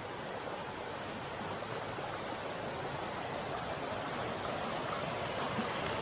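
Shallow rocky forest river running over stones in a steady rush of water. This is a calmer stretch of the stream a few hundred metres below a waterfall.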